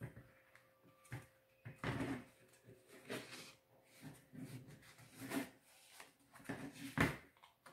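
Hands rubbing, pressing and handling a printed paper clock face on a clock dial against a tabletop: rustling and rubbing with several light knocks, the sharpest about seven seconds in.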